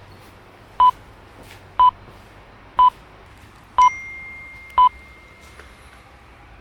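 Short electronic beeps, one a second, five in a row, like a countdown or time signal. A longer, higher tone rings out with the fourth beep and fades away over about two seconds.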